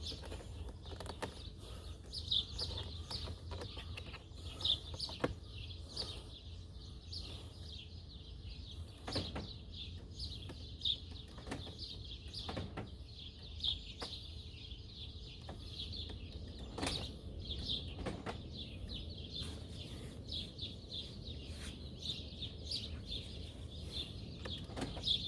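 Small birds chirping over and over in short high calls, with scattered sharp clicks and knocks from hand tools being worked on a car door.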